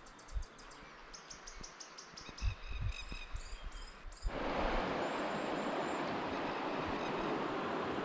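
Faint birdsong, rapid high ticks and short clear notes, then about halfway through the steady rush of a shallow river running over stones takes over.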